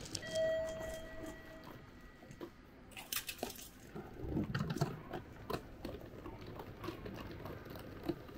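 Footsteps and a rolling suitcase's wheels clicking and knocking over station floor tiles while passing through an automatic ticket gate. A steady electronic tone sounds for just over a second near the start.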